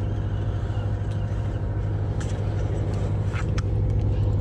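Fishing boat's engine running steadily with a low hum, with a few short clicks after about two seconds.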